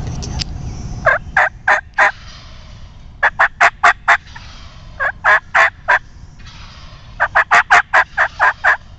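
Wild turkey yelping: four loud runs of short, sharp yelps, four to eight notes in each run, about a second apart.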